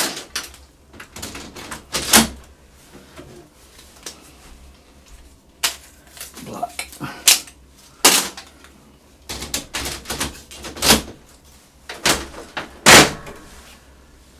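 Hard plastic clicks and knocks as toner-and-drum units are slotted into a Brother MFC-L3750CDW colour laser printer, a sharp knock every second or two. The loudest knock, near the end, is the printer's top cover being shut.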